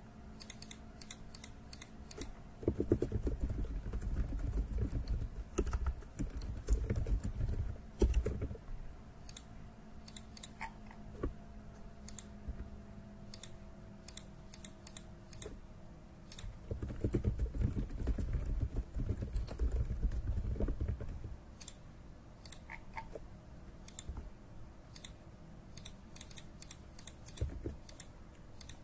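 Computer keyboard typing with scattered key and mouse clicks, uneven in rhythm. Two stretches of low rumble, one in the first third and one past the middle, are the loudest part, over a faint steady hum.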